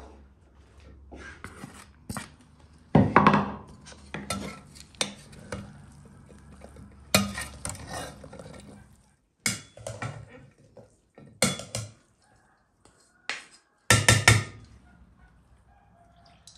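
Metal ladle and spoons clinking and scraping against an enamel bowl and pan while chickpeas, rice and dried fruit are scooped in and stirred together. A run of separate clatters with short pauses, the loudest cluster near the end.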